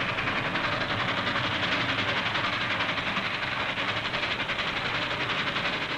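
A steam locomotive running at speed, its exhaust beats and wheels on the rails making a dense, fast, even rattle.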